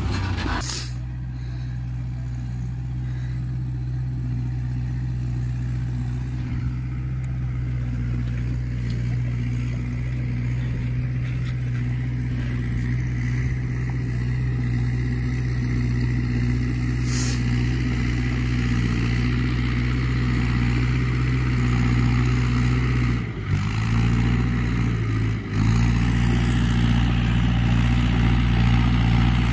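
Tractor diesel engine running steadily at a constant pitch, its note dipping briefly twice near the end.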